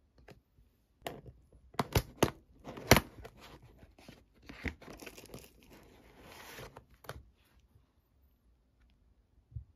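Stiff frosted plastic packaging box being handled and its lid flap opened: a run of sharp crackles and snaps, loudest about three seconds in, then softer crinkling, and a single low knock near the end.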